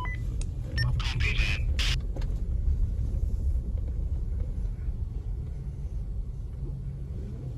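Steady low rumble of a GMC Denali's 5.3-litre V8 running, with a few brief rustling noises about a second in.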